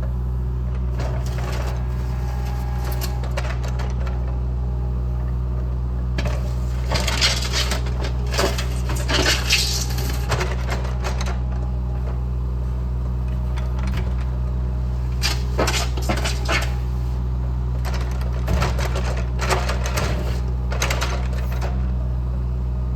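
An engine idling steadily, with scattered metallic clicks and rattles over it, busiest in the middle and latter part.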